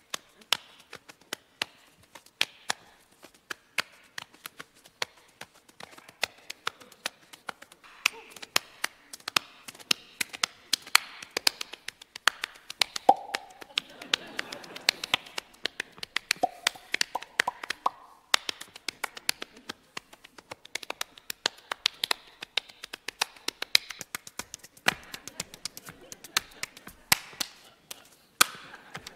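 Body percussion: a seated performer tapping and slapping his hands on his thighs and body in quick, irregular runs of sharp taps, with a few brief pitched sounds around the middle.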